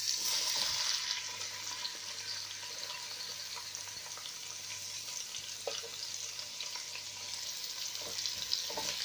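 Sliced onions sizzling as they go into hot oil, loudest in the first second and settling to a steady frying hiss.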